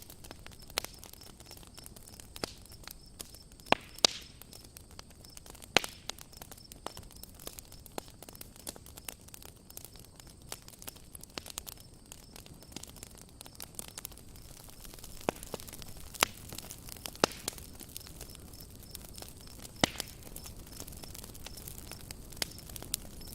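Campfire burning: wood crackling with irregular small pops over a faint hiss, and several louder sharp snaps scattered through.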